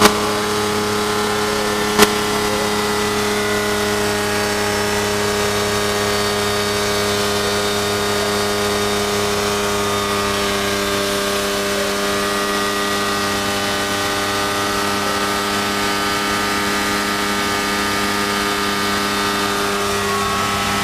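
Kitfox IV floatplane's Rotax engine and propeller running steadily at high power after a full-throttle takeoff, heard from inside the cockpit. A single sharp click sounds about two seconds in.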